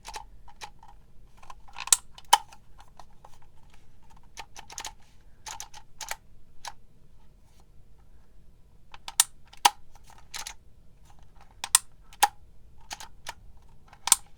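Handheld dial label maker being worked letter by letter: the character wheel turns with a run of small ratchety clicks. Three times, at about two, nine and twelve seconds in, there is a pair of louder snaps about half a second apart as a letter is pressed.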